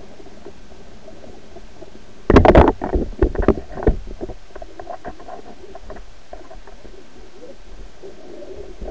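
Underwater camera on a pole being knocked about: a loud cluster of sharp clattering knocks a little over two seconds in, then scattered smaller knocks for a second or so, over steady muffled underwater noise.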